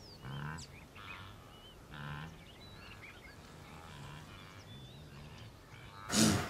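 Blue wildebeest grunting: a series of short, low calls, then one much louder call near the end. Small birds chirp in the background.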